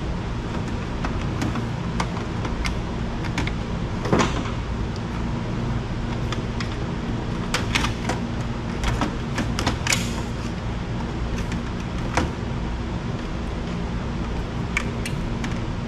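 Scattered clicks, knocks and rattles of circuit boards and plastic parts being handled and pulled out of a dismantled microwave oven, over a steady low hum.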